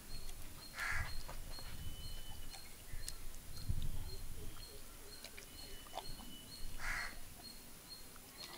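Wet squelching and slapping of hands rubbing a thick spice marinade into a raw whole chicken. A crow caws twice, about a second in and again near the end.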